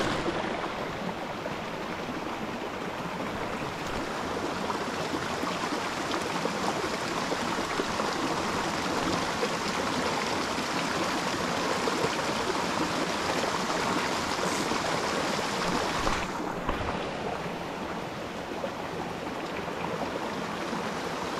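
Steady rushing of a small mountain creek's flowing water, with a brief dip in its hiss about 16 seconds in.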